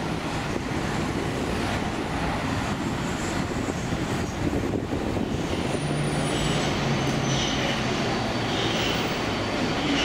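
Alstom Metropolis AM5-M2 metro train pulling into a station, a steady rumbling noise with a low motor hum joining about six seconds in.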